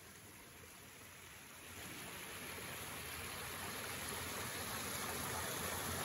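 River water rushing over granite rocks through a small cascade, a steady noise that grows louder about two seconds in.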